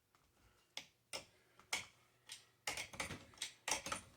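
Hand wrench clicking as it turns the threaded rod of a coil-spring compressor, backing it off to let the strut spring take up pressure: a few scattered clicks, then a quicker run of clicks and rattles in the second half.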